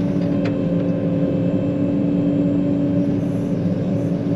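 John Deere 9500 combine's diesel engine running at a steady, even drone while the machine travels, with one short click about half a second in.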